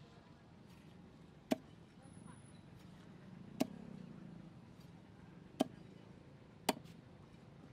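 Heavy knife chopping a carp into steaks on a wooden chopping block: four sharp thuds of the blade going through the fish into the wood, one to two seconds apart.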